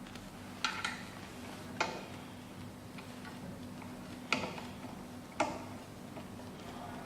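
Sharp metal clicks and knocks, five in all and spread unevenly, as a new key blank is fitted into a tubular key clamp and the holder is tightened on a key cutting machine.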